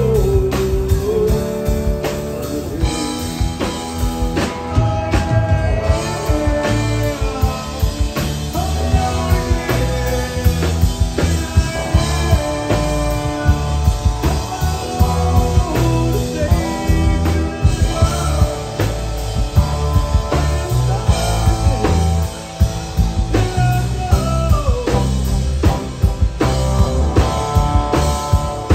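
Live rock band playing: acoustic and electric guitars over bass and drums, with lead lines bending in pitch.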